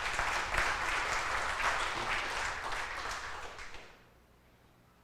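A small audience applauding, dying away about four seconds in.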